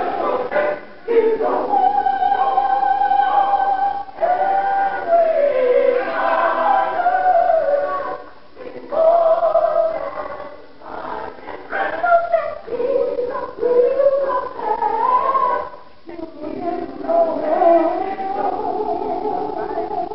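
Gospel choir singing, with a female soloist's voice leading over the choir in long held and gliding notes, and brief pauses between phrases.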